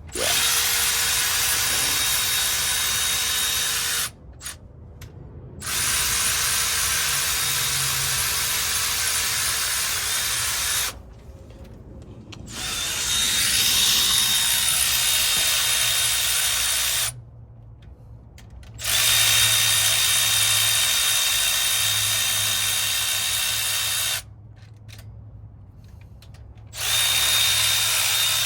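Cordless power tool spinning in five runs of about four to six seconds each, with short pauses between, one run winding up in pitch as it starts: backing out the rocker arm bolts on an LS V8.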